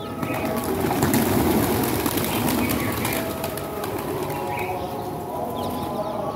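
A flock of pigeons taking off together: a rush of many flapping wings that swells about a second in and eases off after a few seconds, with pigeons cooing.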